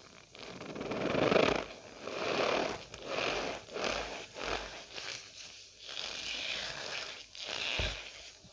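Cornstarch powder squeezed and pressed by hand, making a squeaky crunching sound in short strokes about once a second, the loudest near the start.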